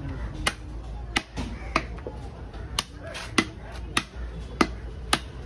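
Heavy cleaver chopping through fish on a wooden log chopping block: about eight sharp strikes, one every half second to a second.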